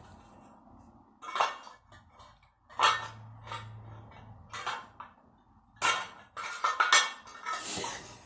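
A handful of sharp clinks and knocks of hard objects being handled. There are single ones in the first half and a busier run of them near the end.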